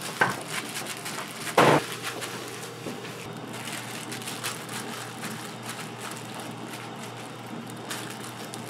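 Food-prep handling on a steel counter: a couple of knocks near the start and a louder thud about a second and a half in, then soft scraping and patting as croquette filling is spread on bread slices, over a steady low hum.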